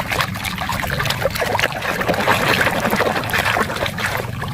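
A hand sloshing and swishing through foamy water in a plastic basin, scrubbing a muddy toy clean, with continuous irregular splashing.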